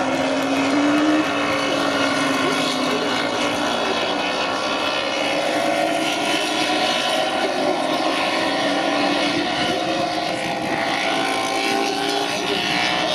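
Several MotoGP racing motorcycles, 1000 cc four-cylinder four-strokes, riding past together at low speed. Their engines run at part throttle, with the pitches overlapping and slowly rising and falling. This is the bikes' slow return lap after the race.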